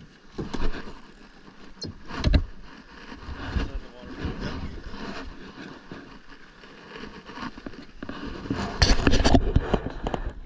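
Handling noise from a fishing rod and reel fighting a yellowtail: irregular knocks and rustling as the fish is reeled up beside the boat, with a louder flurry of knocks about nine seconds in.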